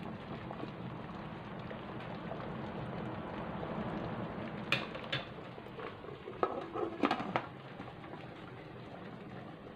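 Cassava in coconut milk simmering in an aluminium pot on a gas stove, a steady bubbling hiss. A few sharp metal clinks about five seconds in, then a cluster of knocks and clinks around seven seconds as the aluminium lid is set on the pot.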